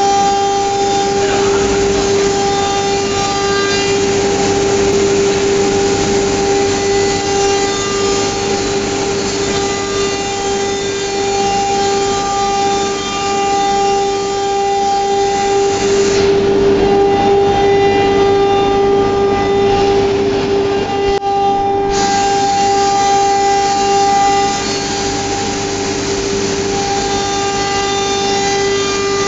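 CNC router spindle running at high speed, a steady whine held at one pitch over a rougher cutting noise as the machine works.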